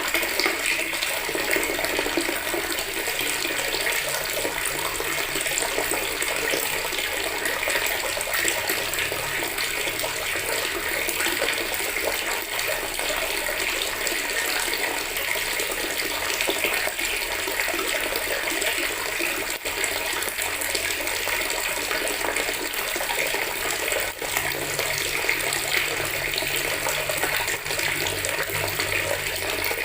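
Water from a tap pouring steadily into a bucket, a continuous splashing stream.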